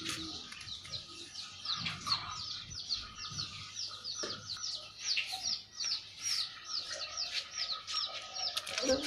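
A bird chirping over and over in short, high calls, about three a second.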